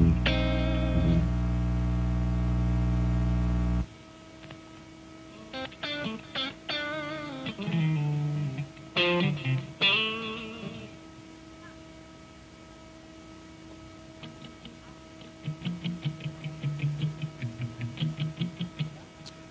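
Live band's instruments sounding without a song: a loud held chord that cuts off suddenly about four seconds in, then loose electric guitar licks with wavering, bent notes, and a run of quick picked notes near the end.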